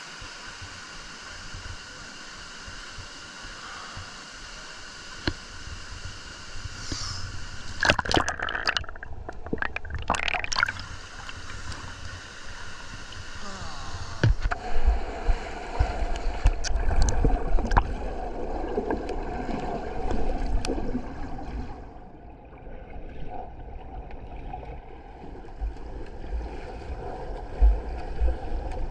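Water sloshing and gurgling close to the microphone over a steady rush of flowing water, with a few sharp splashes early on and low rumbling buffets on the microphone through the second half.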